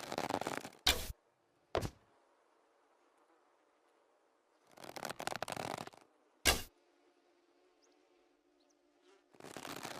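Manchu bow being drawn and loosed twice: each time about a second of rustling, scraping draw, then a sharp, loud snap of the string on release. A fainter knock follows about a second after the first snap.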